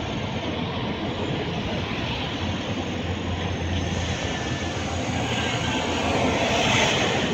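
Wind blowing across the microphone: a steady rushing noise with a low rumble, growing louder near the end.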